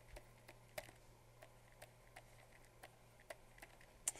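Faint, irregular clicks of a pen stylus tapping on a drawing tablet while handwriting, about two to three a second, with a sharper click near the end, over a faint steady hum.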